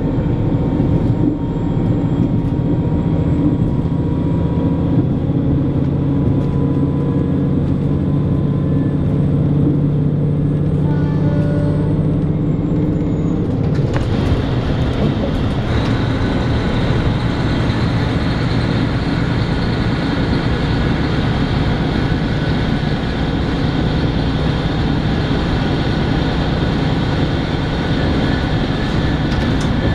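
Running noise inside a diesel local train: the engine's steady drone with the rumble of wheels on rail. About 14 seconds in, the train enters a tunnel and the sound turns harsher and hissier.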